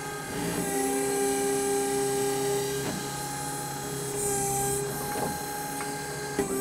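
Everun ERE12E electric mini-excavator's electric motor and hydraulic pump whining steadily while working the boom and bucket, the pitch dipping and shifting briefly a few times as the controls move. A short hiss comes near the middle and a click just before the end.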